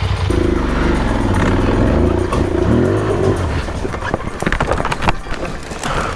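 Motorcycle engine revving unevenly, its pitch wavering and then dropping, as the rider struggles up a steep hill. About four to five seconds in comes a rapid series of knocks and clatter.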